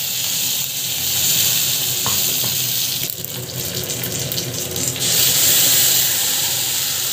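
Hot oil sizzling steadily in a kadai with mustard seeds and freshly added curry leaves, the tempering stage of rasam. There is a stretch of finer crackling in the middle.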